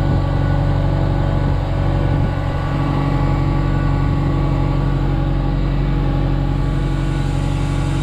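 Genie S-60 boom lift's engine running steadily, heard up close to its inline electric fuel pump, which is buzzing along. The engine is running smoothly and the pump is working.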